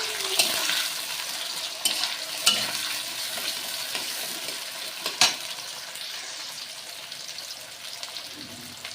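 Chopped onions sizzling in hot oil in a kadai as they are stirred, the stirring utensil giving a few sharp knocks against the pan, the loudest about five seconds in. The sizzle slowly dies down.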